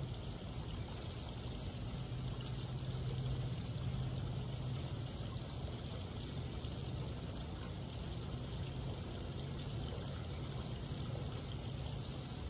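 Water from a garden pool's stone-wall water feature spilling steadily into the pool, with a steady low hum underneath.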